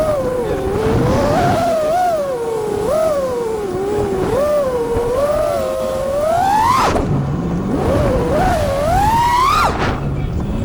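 FPV quadcopter's brushless motors whining, the pitch sliding up and down as the throttle changes. Twice the whine climbs steeply and then drops off abruptly as the throttle is chopped.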